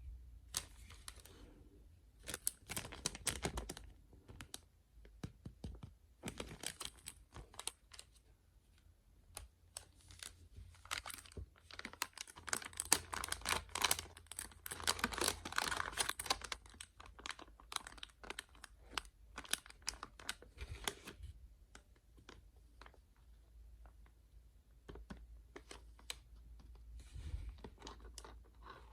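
Small mystery bags being handled and torn open: packaging crinkling and tearing, with many sharp clicks and taps in irregular clusters.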